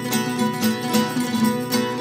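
Plucked string instruments playing a quick run of notes in an instrumental passage of a folk song.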